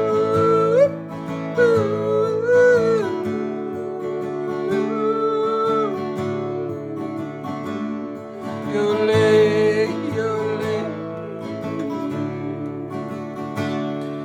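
Country song: a voice sings long wordless notes that slide and break in pitch, in a yodel, over strummed acoustic guitar.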